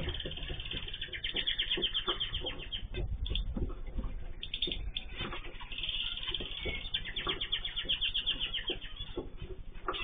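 Small aviary birds, such as zebra finches and canaries, chirping and calling, with two long runs of fast repeated trilling notes. Wings flap now and then with soft thumps.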